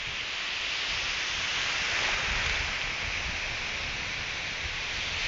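Ocean surf breaking and washing through the shallows: a steady rushing hiss that swells and eases a little.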